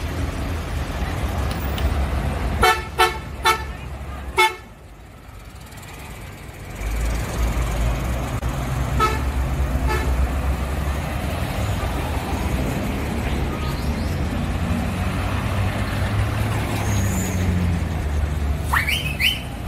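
Vintage city buses driving past in traffic, engines rumbling, with a quick run of four short horn toots about three seconds in and two more single toots around nine and ten seconds. A heavier engine rumble builds from about seven seconds in as a bus approaches, and a short rising squeal comes near the end.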